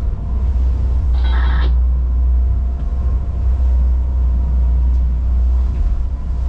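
Rescue boat's engines running steadily under way, a loud deep drone heard inside the wheelhouse. A brief higher-pitched sound cuts in about a second in.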